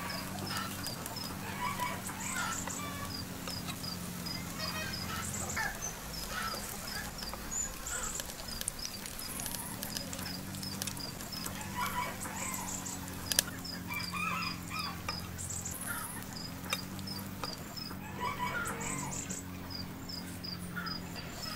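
Chickens clucking now and then, with small high chirps repeating a few times a second behind them and a low steady hum underneath.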